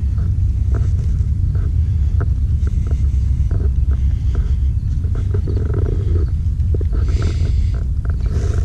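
Steady low rumble of a car being driven, heard from inside the cabin: road and engine noise, with a few faint scattered clicks.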